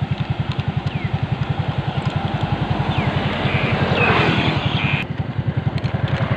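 Motorcycle engine idling with a steady, even low putter. A louder noisy swell rises and fades around the middle.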